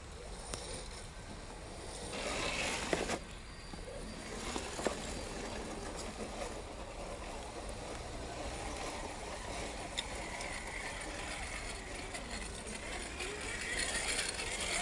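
1/10-scale electric RC crawler trucks driving over mud, their motors and gearboxes whining, with a few sharp clicks. The whine grows louder near the end.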